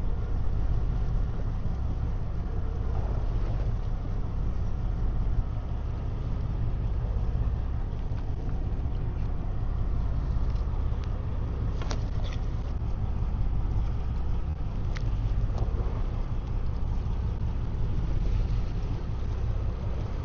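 Steady low rumble of a fishing boat's engine running at sea, with a few faint clicks about twelve and fifteen seconds in.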